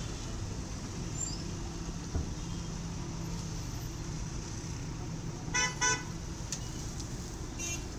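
Steady low engine rumble of the working machinery and street traffic, with a vehicle horn honking twice in quick succession about five and a half seconds in and once more, briefly, near the end.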